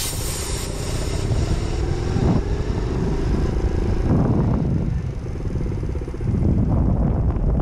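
Skyteam Monkey 50cc moped engine running as it rides slowly, the revs rising briefly about two, four and six and a half seconds in.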